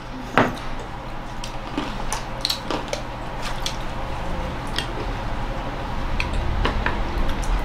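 Small red bottle spun on a tabletop: a knock as it is set spinning about half a second in, then a low rubbing rumble as it turns, with scattered small clicks.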